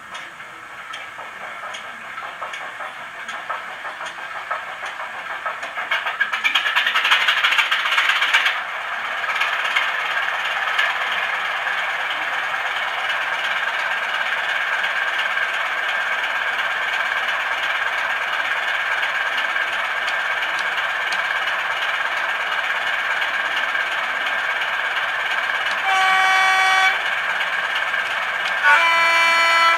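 Recorded Class 33 diesel locomotive sound played by a DCC sound decoder's small speaker in a model locomotive: the Sulzer engine builds up over the first eight seconds, then settles to a steady idle. Near the end come two horn blasts, the second lower in pitch.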